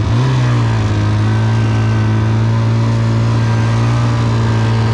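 Engine of a small vehicle revving up, then holding a steady drone at a constant speed.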